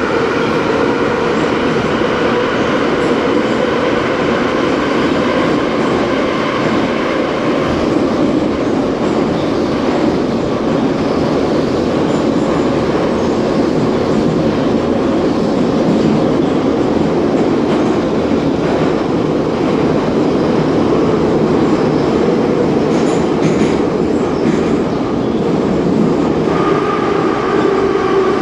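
A 1974 Ezh3 metro train running at speed in the tunnel: a loud, steady rumble of wheels on rails with a motor whine that fades over the first few seconds. Near the end a new whine comes in and falls slightly in pitch.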